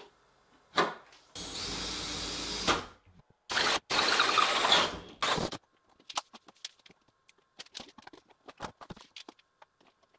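Power drill run in two bursts, the first about a second and a half with a high whine, the second about two seconds, drilling into the wooden ceiling boards for lamp holes. Light clicks and taps follow.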